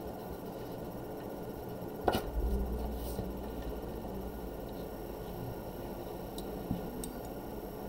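Hands handling drawing paper and small tools on a tabletop, with one sharp knock about two seconds in, a low rumble for about a second after it, and a couple of light clicks near the end, over a steady electrical hum.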